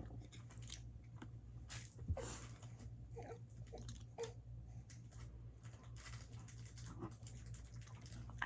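A person eating close to the microphone: soft chewing with scattered wet mouth clicks and smacks, over a low steady hum.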